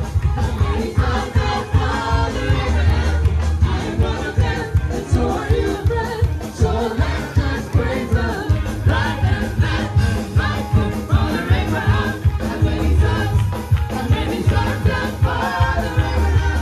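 Live gospel praise music from a church band with electric guitar and heavy bass, playing a steady upbeat rhythm while a group of voices sings along.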